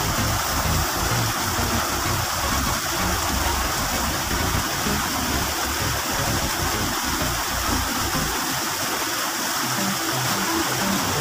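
Small waterfall: water spilling over a rocky drop into a pool, a steady rushing splash.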